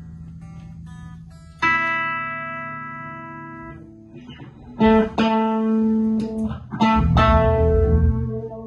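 Electric guitar and bass guitar played through amplifiers, with no drums or singing. Single chords are struck and left to ring out: one about a second and a half in that slowly fades, then two more near five seconds and one near seven seconds that sustain loudly.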